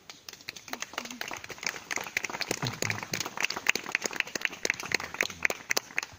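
A small group of people applauding by hand. The claps build up after about a second and stop near the end.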